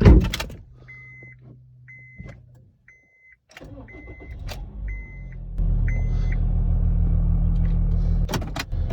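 A thud, then a car's warning chime beeps about six times. A little past halfway the 2013 Honda Fit's 1.5-litre four-cylinder engine starts and runs steadily with no rattle, its accessory belt refitted and crank pulley cleaned. A sharp click sounds near the end.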